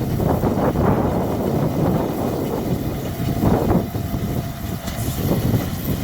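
Tractor engine running under load with a hay baler working, a low uneven mechanical rumble with a faint steady whine through the middle.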